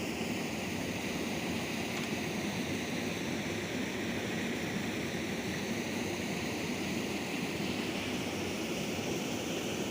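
Small river's water flowing, a steady even rush with no separate events.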